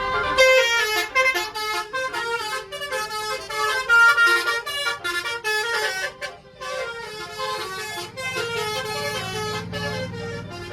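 A bus's telolet (basuri) multi-tone horn playing a fast melody of short, changing notes, with a few brief breaks. A low engine hum comes in near the end.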